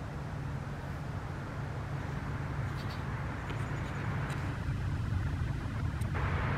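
Diesel engines of a river towboat pushing barges: a steady low drone that slowly grows louder.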